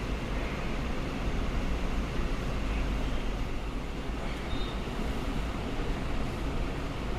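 Steady low background rumble with a hiss over it, unchanging throughout.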